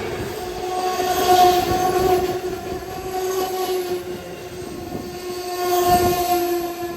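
Train air horn sounding a long, steady note that swells twice and fades near the end.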